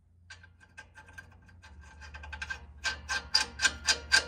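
Ratchet wrench clicking in a steady rhythm as a nut is run onto the strut's lower mounting bolt. The clicks are faint at first and grow much louder about three seconds in, at about four a second.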